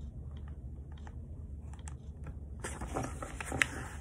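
Handling noise on a hand-held phone: scattered light clicks and rustling over a low steady hum, turning into a louder rustle with sharp clicks in the last second or so.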